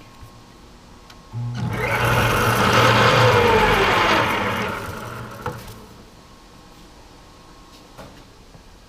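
A machine-shop power tool's electric motor runs for about four seconds. It starts suddenly with a steady hum and a whir, then winds down with a falling pitch.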